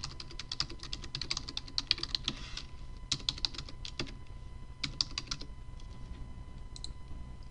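Typing on a computer keyboard: a fast run of key clicks for about two and a half seconds, then a few shorter bursts of keystrokes.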